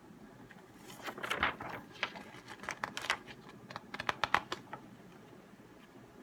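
Paper rustling and crinkling with irregular light clicks and taps as a printed booklet is handled and its pages opened; it stops about five seconds in.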